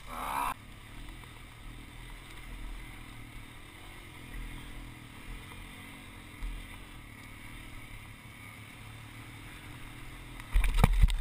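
Dirt bike engine running at low speed under wind buffeting the helmet-mounted microphone, with louder buffeting near the end.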